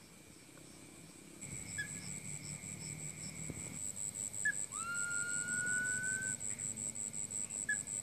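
Night insects chirping in a rapid, even, high-pitched pulse. A little past the middle comes one clean whistle that rises and then holds for about a second and a half, and a few short chirps are scattered through.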